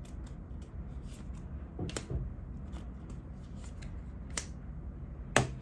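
Tarot cards being handled on a table: a few separate sharp clicks and taps, the loudest near the end, over a low steady hum.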